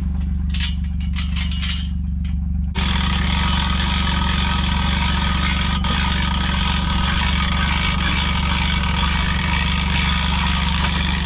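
John Deere Gator utility vehicle idling steadily. In the first couple of seconds there is crackly rustling of hay being pulled off a round bale. From about three seconds in, a steady hiss with a thin high whine joins the engine.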